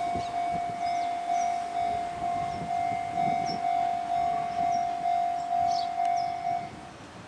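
Japanese level-crossing warning bell ringing in a steady repeating clang, about two strokes a second, stopping near the end, over the low running sound of the Fujikyu 2000 series electric train pulling away.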